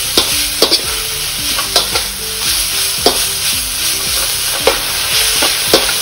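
Shredded cabbage, carrot and capsicum sizzling in hot oil in a non-stick wok over a high flame, stirred and tossed with a slotted metal spatula that clicks and scrapes against the pan every second or so.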